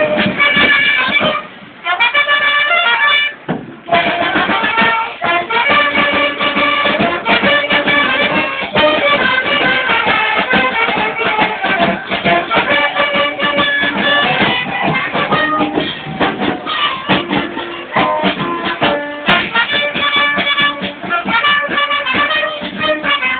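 A charanga street band playing: a wind-instrument melody over bass drum and snare drum. The music breaks off briefly twice in the first few seconds, then runs on.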